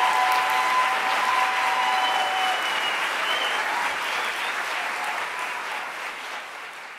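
Theatre audience applauding after a solo song, with a few held cheers over it in the first couple of seconds. The applause gradually dies down.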